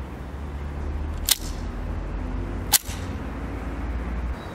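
Two sharp metallic clicks about a second and a half apart from handling the Hungarian Frommer 37M pistol, the mechanism being worked after loading, over a steady low rumble.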